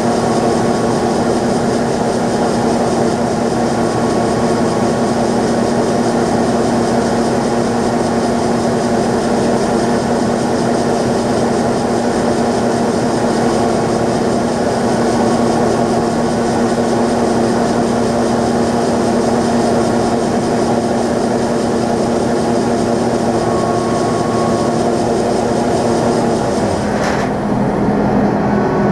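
John Deere 9500 combine running steadily: a loud, constant engine drone with a strong hiss over it. Near the end the sound changes abruptly and the hiss drops away.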